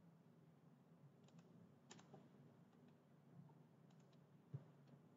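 Near silence broken by a few faint, short clicks of a computer mouse and keyboard.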